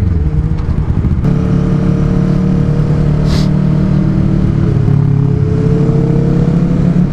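A 2014 Kawasaki Ninja 650's parallel-twin engine running under way. Its pitch climbs slowly twice as the bike gathers speed.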